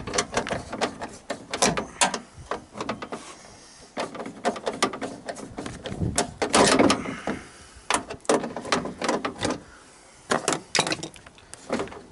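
Hand ratchet clicking in quick runs while working loose a stiff, cross-threaded bolt holding the window regulator inside a car door. There is one louder, longer rattle about seven seconds in.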